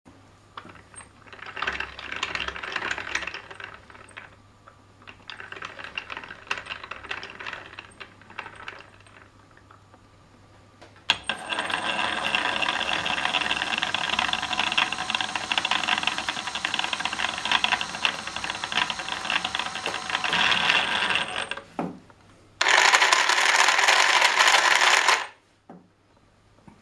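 Clear acrylic plastic gears meshing and clattering in a small electric-motor-driven gear and belt drive model. Two shorter rattling spells come first. About eleven seconds in, a long, steady whirring run with a constant whine sets in, followed near the end by a louder, harsher spell that stops abruptly.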